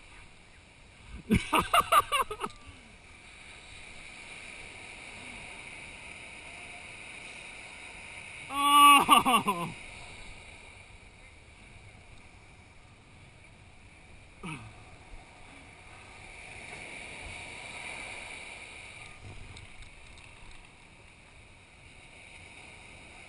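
People's voices over steady wind and surf noise: a quick run of laughter about a second in, then a loud yell falling in pitch near the middle, the loudest sound, and a short falling call a few seconds later.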